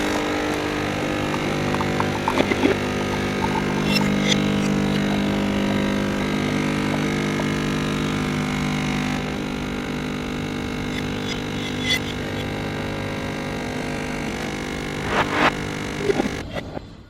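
A steady motor hum with a few sharp clicks and knocks over it, cutting off suddenly at the end.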